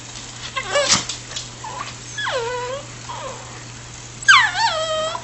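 Cavachon puppy whining and yowling with excitement: a short call about a second in, a longer falling whine a little after two seconds, and a louder, wavering one near the end.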